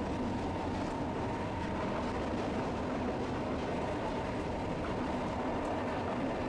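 Tosaden streetcar running along its tracks, heard from inside the car: a steady running noise of motor and wheels on rail.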